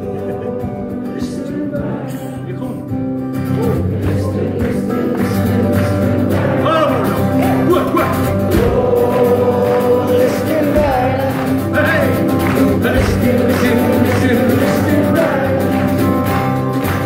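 Live acoustic folk-band music: strummed acoustic guitar and hand percussion under a melody line that bends and slides in pitch, with some singing heard.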